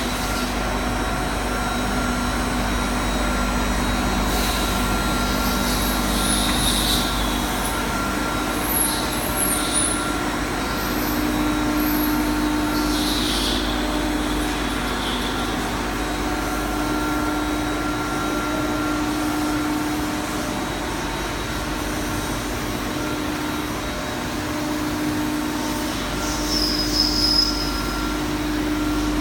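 CNC tool grinding machine running: a steady hum over a low rumble, with a few brief high squeals.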